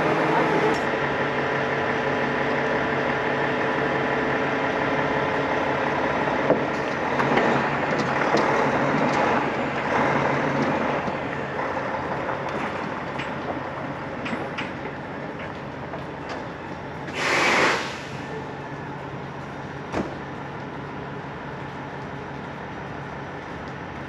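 Diesel engine of a Cat D6 XE dozer running steadily during unloading from a lowboy trailer, its sound gradually fading over the second half. A loud hiss of air lasting about a second comes about seventeen seconds in, followed by a single click.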